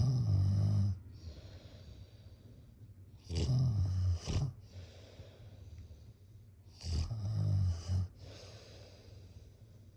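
Snoring: three loud snores, each about a second long and roughly three and a half seconds apart, with fainter breathing between them.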